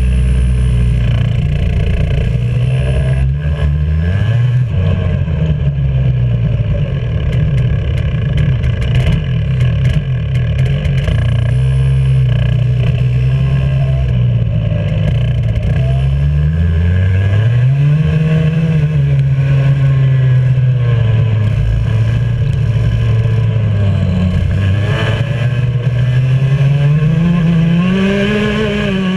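Onboard sound of a Junior X30 kart's 125cc two-stroke engine at racing speed, revving up on the straights and dropping through the corners, its pitch rising and falling over and over and climbing high near the end. A few sharp clicks come through part of the way in.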